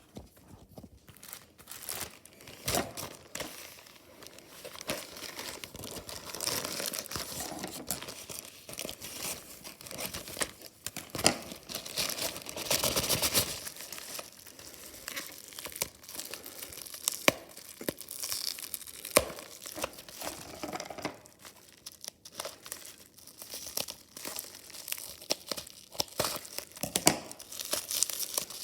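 Product packaging being handled and opened by hand: crinkling and tearing with scattered sharp clicks and taps, in bursts that come and go.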